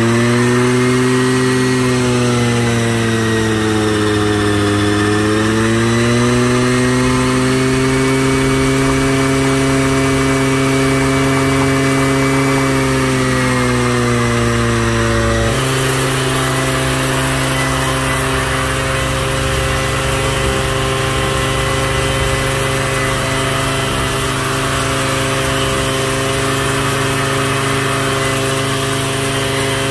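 Brush cutter engine driving a belt-and-pulley high-pressure power sprayer pump, running fast and steady, its pitch dipping a few seconds in and rising again. About halfway through the sound cuts to the engine running at a steady, even speed while the sprayer is in use.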